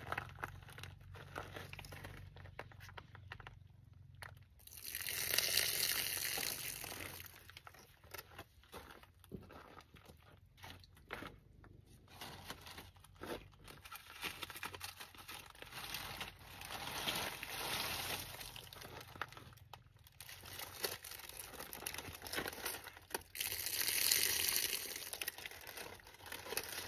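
Irregular rustling and crunching with scattered small clicks, swelling into two louder hissing rushes about five seconds in and again near the end.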